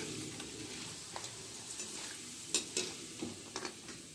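Sun-dried rice-batter jalebis frying in hot oil: a steady sizzle, broken by a few short clicks as they are stirred in the pan.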